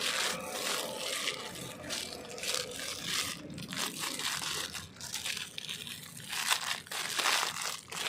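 Packaging being crumpled and torn open by hand, in irregular crinkling strokes.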